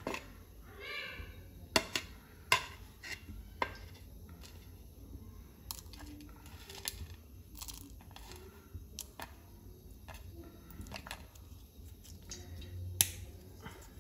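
Light, scattered clicks and ticks as whole spices (cloves, cardamom pods, cinnamon bark) are picked off a ceramic plate and dropped into a small aluminium cup, roughly one every second or so, with a sharper click near the end. A brief hummed voice sounds about a second in.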